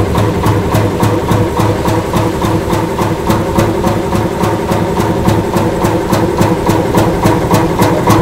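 Giant vintage Fairbanks Morse three-cylinder stationary engine running steadily after an air start, with an even, sharp exhaust beat about four to five times a second over a low steady rumble.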